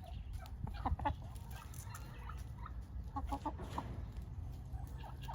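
Red hens clucking in short soft calls, a cluster about a second in and another run of clucks around three seconds in.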